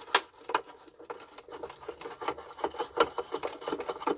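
Quick light clicks and rubbing from a screwdriver working a forgotten screw out of a plastic vacuum cleaner housing, several small clicks a second.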